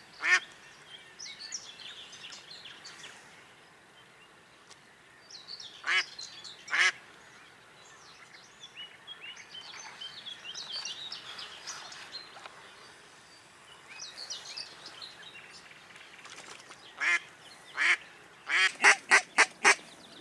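Live decoy hen mallard quacking: single loud quacks now and then, then near the end a quick run of about six quacks, the calling that draws drakes in.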